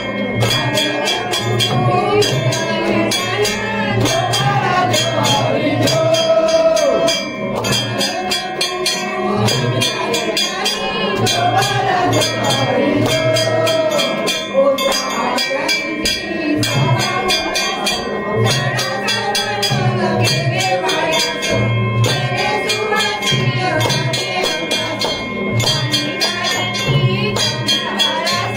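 Devotional song: voices singing a melody over a steady drum beat and rapid, continuous percussion strikes.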